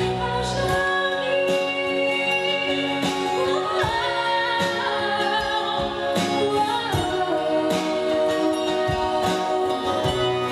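A woman singing a pop song live into a microphone, backed by a band with electric guitar. She holds long notes, with a rising vocal glide about four seconds in, over a steady beat.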